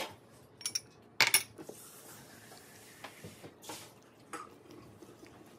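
Metal spoon clinking against a stainless steel roasting pan while sauce is spooned over the chicken: a loud cluster of clinks about a second in, then a few lighter taps.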